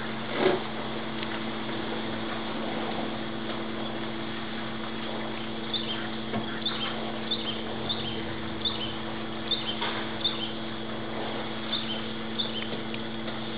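A small bird gives a series of short, high chirps, roughly one every half-second to second, starting about halfway through, over a steady low hum. A single short thump comes about half a second in.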